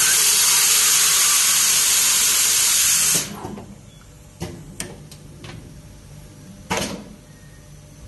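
Heat-shrink tubing inserting and shrinking machine letting out a loud, steady hiss of air for about three seconds, which stops abruptly. A few sharp clicks of its mechanism follow, then a short puff of air near the end.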